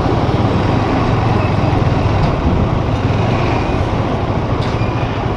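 Steady vehicle noise: a continuous low rumble of motor traffic, even in level.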